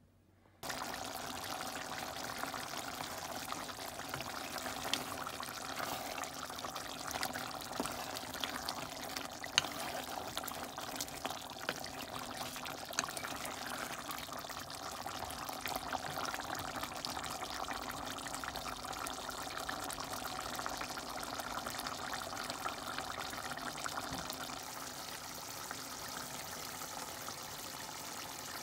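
Chunks of meat simmering in liquid in a metal pot, bubbling and sizzling steadily, with occasional clicks as a wooden spoon stirs. The sound starts suddenly just after the start.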